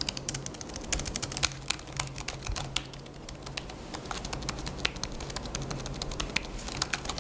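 Typing on a Kanex MultiSync aluminium keyboard: a rapid, irregular run of light clicks from its low-profile keys.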